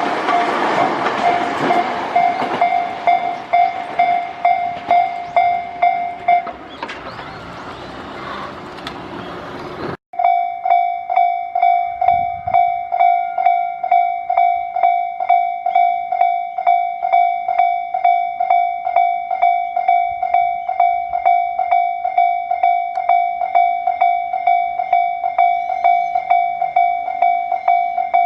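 Railway level-crossing warning bell ringing in a steady rhythm of about two strikes a second, over the rushing, clattering noise of a train passing over the crossing. The bell stops about six seconds in and the train noise fades. After a cut, the bell rings again on its own.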